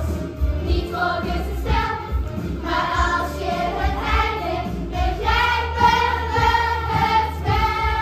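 A group of children singing a song together over instrumental accompaniment with a steady beat.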